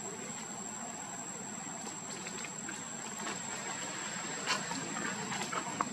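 A steady high-pitched insect drone, with a few faint clicks about four and a half seconds in and near the end.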